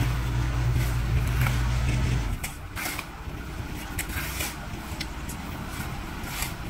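Steel shovels and rakes scraping and scooping loose asphalt mix on the road surface in irregular strokes. A steady engine hum underneath cuts off about two seconds in.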